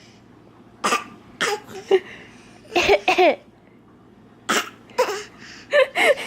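A baby fake coughing on purpose: a string of short, voiced coughs, several in quick pairs, about a second apart.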